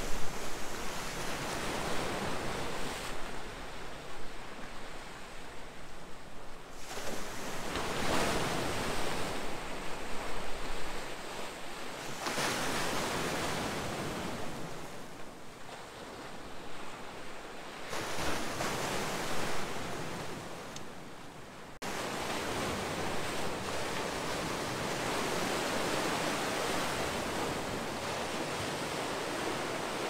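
Sea waves breaking and washing in against a shoreline of boulders, the surf swelling and easing every few seconds, then settling into a steadier, fuller wash about two-thirds of the way through.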